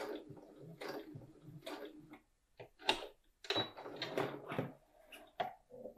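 Domestic electric sewing machine stitching in two short runs, backstitching to lock the end of a seam, with a few sharp clicks in the pauses between the runs.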